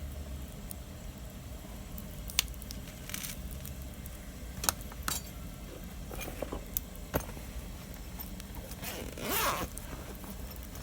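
Wood campfire crackling, with sharp irregular pops and a longer scraping rustle near the end over a low steady rumble.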